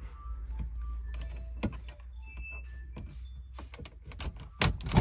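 Removal keys clicking and scraping in the slots of a Renault Master 3's factory car radio as it is unlatched and worked loose from the dash. The clicks come more often and louder toward the end, ending in a couple of louder knocks.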